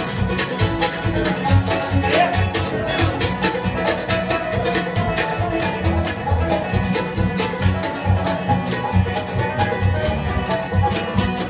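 Bluegrass band playing live, with no singing: fiddles, mandolin, guitar, banjo and upright bass, over a steady bass beat.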